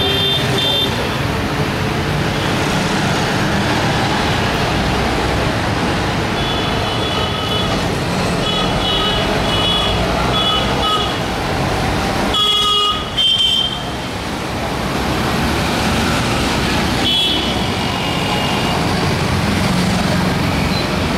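Busy street traffic running steadily, with vehicle horns honking in short repeated beeps in several clusters, the loudest a little past halfway.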